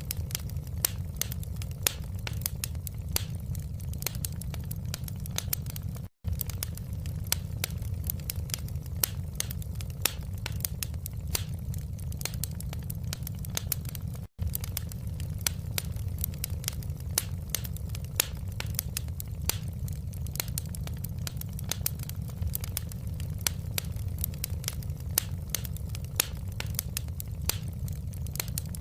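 Wood fire crackling in a fireplace: a steady low rumble with frequent irregular sharp pops and snaps. The sound cuts out for an instant twice.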